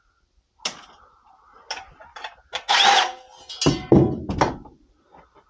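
Tools and sheet-metal furnace parts being handled: scattered clicks and knocks, a loud rasping half-second about three seconds in, then a couple of heavy clunks.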